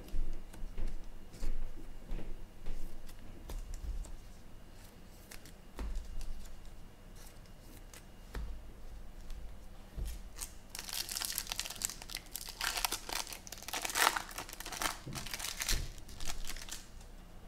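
Light taps and handling noise, then from about ten seconds in a foil trading-card pack wrapper being torn open and crinkled for several seconds.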